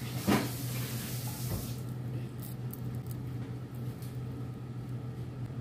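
Fingers pulling the seeds out of soft dates: faint sticky clicks and small knocks over a steady low hum. A soft hiss stops about two seconds in.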